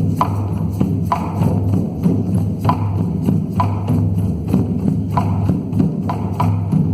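Intro music: a steady low drone under a slow drum beat, with about one ringing stroke a second.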